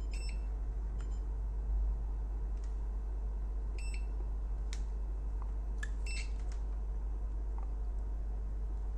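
Digital multimeter's continuity beeper giving three short beeps as the test probes touch a ceramic resonator; the beeping marks a short, and the resonator is found to be shorted. Faint clicks of the probes come between the beeps.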